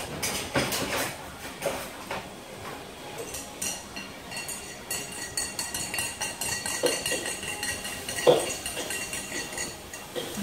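Irregular clinks and knocks of hard objects being handled, with a high ringing tone through the middle; one louder knock near the end.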